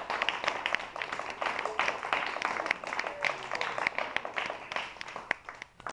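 Small classroom audience applauding, many hands clapping at once; the clapping thins out and gets quieter near the end.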